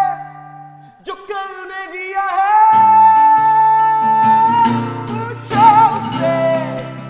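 Indian rock band music: a male voice sings over acoustic guitar, holding one long note for a couple of seconds, with lower bass notes coming in under it about three seconds in.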